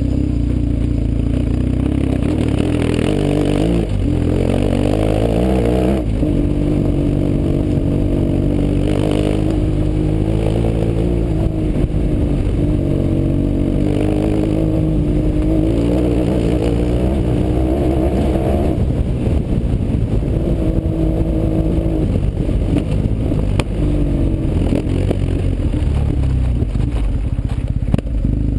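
BMW R 1150 GS flat-twin boxer engine running through an FF Fresco aftermarket exhaust, pulling up a loose gravel track. Its note rises and falls a few times as the throttle is worked, with gravel crunching and clattering under the tyres.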